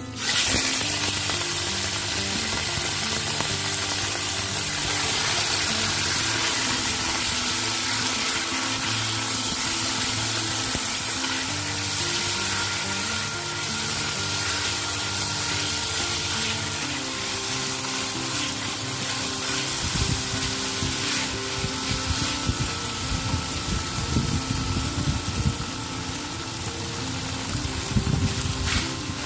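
Seasoned squid pieces hitting hot oil in a wok and sizzling loudly, the hiss starting suddenly as they go in and continuing while they are stir-fried with a spatula. Soft background music plays underneath.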